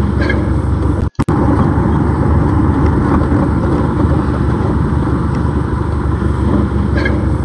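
Steady car cabin noise from a dashcam recording: the car's engine running and road rumble. It drops out briefly about a second in.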